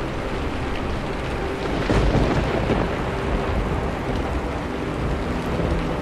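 Steady rain with a rumble of thunder that swells about two seconds in and fades over the next second or so.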